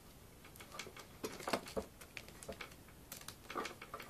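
Faint, irregular clicks and taps of kamishibai picture cards being handled in their frame, at about a dozen uneven knocks.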